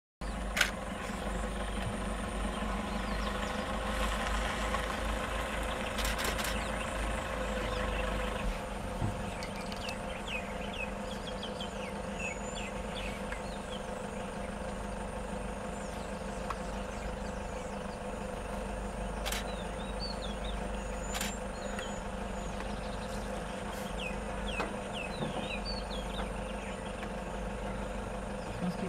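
Safari vehicle's engine idling steadily, with short high chirps over it from about nine seconds in.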